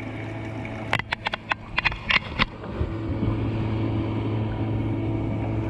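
Small 12-volt bilge pump motor running with a steady hum, pumping water out of the kayak after regaining suction once the water has shifted to the stern. About a second in comes a quick run of sharp knocks and clicks, and about three seconds in the hum grows louder and fuller.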